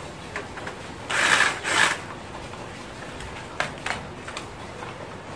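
Screwdriver working a tight screw on a wall socket: two loud scraping strokes about a second in, then a few sharp clicks.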